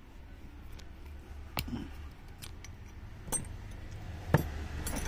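Metal screwdriver bits clicking against each other and against the screwdriver's hex bit holder as they are handled and taken out: a handful of sharp clicks, the loudest a little over four seconds in, over a low steady hum.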